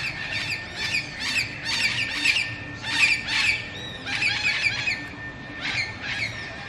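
A flock of wild parrots squawking, a ruction of harsh calls two or three a second, with a brief lull about five seconds in.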